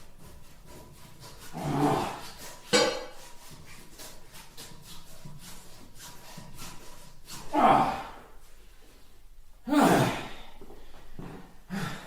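A person's pained groans and gasps, swelling into louder outbursts about two, eight and ten seconds in. A sharp crack comes about three seconds in. This is a staged torture scene in which a leg is being injured.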